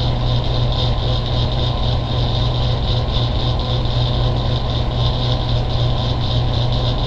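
Steady low hum with a constant hiss, unchanging background noise of the room or the recording equipment.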